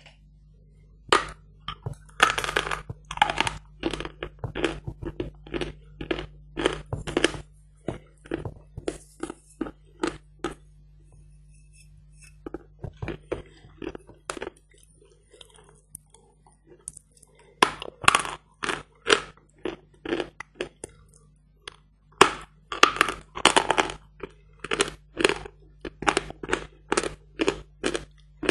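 Hard lump chalk bitten and chewed close to the microphone: runs of sharp, dry crunches with short pauses, thinning out around the middle and coming thick again in the second half.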